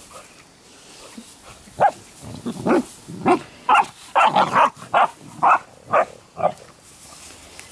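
Saint Bernard puppies play-fighting, with about ten short barks and growls coming in quick succession from about two seconds in.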